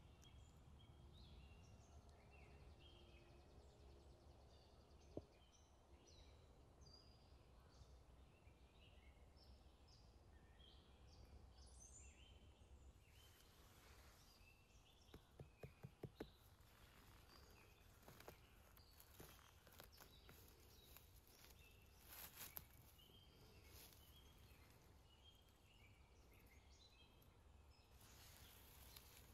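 Near silence: quiet forest ambience with faint, scattered bird chirps. A few soft clicks and rustles of dry leaves come about halfway through.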